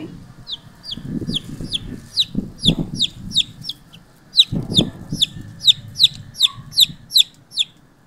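Domestic chick peeping over and over: short, high, falling peeps at about three a second, the steady call of a distressed chick.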